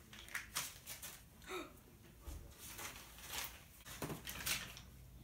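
Faint rustling and a run of short scuffing bursts, several a second, as paper bills are handled and waved about.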